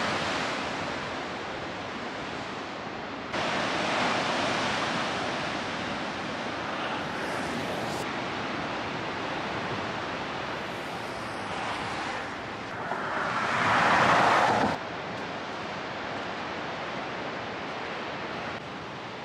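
Ocean surf breaking on a rocky coast below the cliffs, a continuous wash of waves. A wave swells louder about two-thirds of the way through and then cuts off suddenly.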